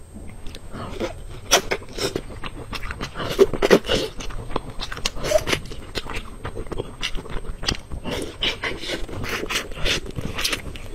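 Fingers pulling apart and handling a sticky piece of glossy braised meat close to a clip-on microphone: a run of irregular short wet clicks and rubs.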